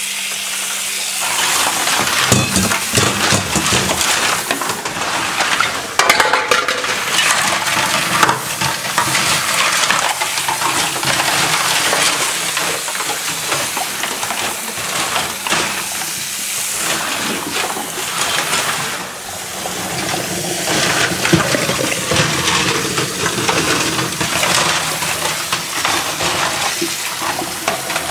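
Water running and splashing, with many small clinks and rattles throughout.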